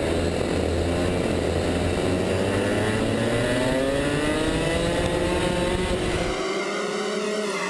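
Rotax MAX 125cc two-stroke kart engines accelerating, heard from onboard a kart running in a pack; the engine note rises steadily in pitch for several seconds. About six and a half seconds in the low rumble drops out abruptly while the engine sound carries on.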